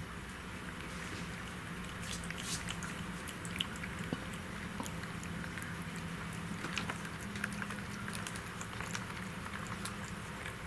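Cats licking and lapping up yogurt: a run of small, irregular wet clicks and smacks of tongues on plastic and yogurt.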